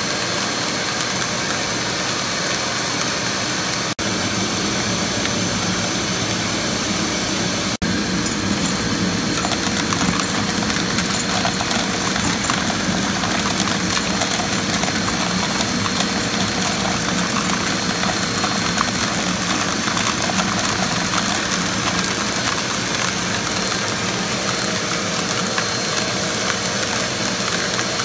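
Steady rush of the blower driving a homemade air column separator, blowing cracked black walnut shell pieces up the clear column, with fine ticking of pieces against the column from about eight seconds in. The sound cuts out for an instant twice.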